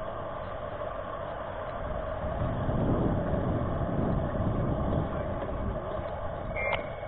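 An F450 quadcopter's motors and propellers spinning steadily on the ground, with an even whine. A low rushing noise swells in the middle and then eases.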